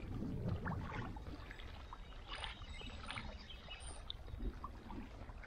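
Gentle water lapping and sloshing at the lake's edge, under a low rumble, with scattered light clicks and taps.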